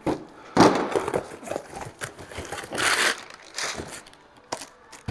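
A cardboard parts box being opened by hand and crumpled packing paper pulled out of it: irregular rustling and crinkling, with a few sharp clicks and taps of the box near the end.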